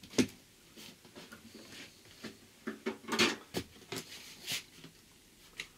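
Cardboard sheet being handled and pressed against a wooden batten frame: a sharp knock just after the start, a cluster of knocks and scrapes around the middle, then a few lighter taps.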